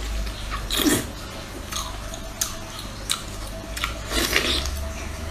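Close-up mouth sounds of biting and chewing into a whole cooked octopus, with a series of sharp smacking clicks spaced less than a second apart.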